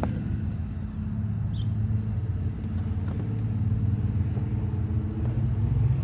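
Steady low engine hum, like a motor running at idle, growing a little stronger about four seconds in.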